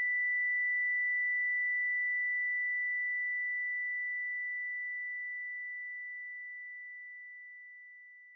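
A single high, steady sine-wave tone, the film's ear-ringing effect after a gunshot, fading slowly until it is nearly gone near the end.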